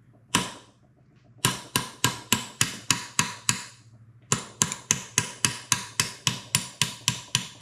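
Hammer tapping a steel pin out of a 1939 Ford transmission case: one tap, then quick, even metal-on-metal taps about four a second, with a short break partway through.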